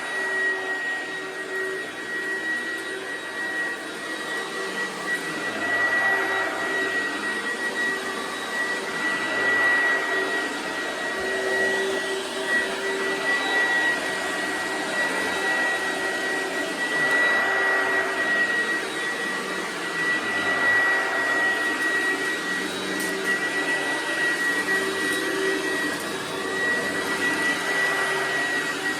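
1996 Oreck XL9200 upright vacuum cleaner running steadily, its motor giving a constant high whine over a rushing airflow noise. The sound swells and eases slightly over the course of several seconds.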